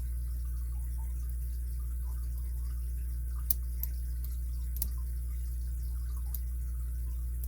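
A few small, sharp clicks of a lock pick working the pins inside an ABUS 83CS80 padlock, about four of them around the middle, over a steady low hum.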